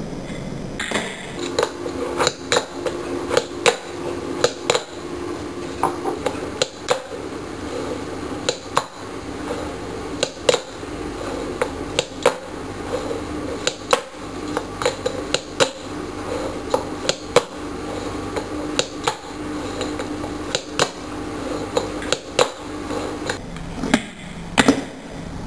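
Fingerboard (miniature finger skateboard) clattering on a hard tabletop and a book: sharp plastic clacks of the deck popping, flipping and landing, at irregular intervals of a fraction of a second to about a second, with a couple of louder landings near the end.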